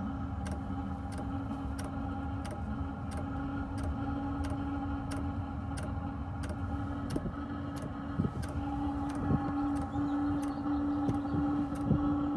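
Webasto Airtop 2000 heater's fuel dosing pump ticking with evenly spaced clicks, about two a second, as it draws fuel through the filter to prime the line. A steady low hum runs underneath.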